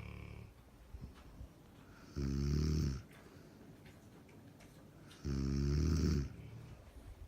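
Snoring from a sleeper: two loud, low-pitched snores about three seconds apart, each lasting under a second, with quieter breathing between them.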